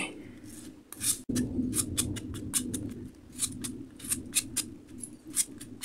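Metal vegetable peeler scraping the skin off an apple in a quick, uneven run of short strokes, several a second, over a low steady hum.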